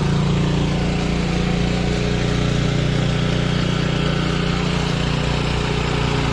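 Small single-cylinder engine of a 1976 Ariens Sno-Thro snowblower running steadily at an even speed.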